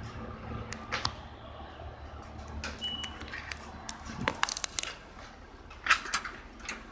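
Scattered clicks and taps of handheld camera handling and footsteps, over a low rumble that fades out about halfway, with one brief high beep about three seconds in.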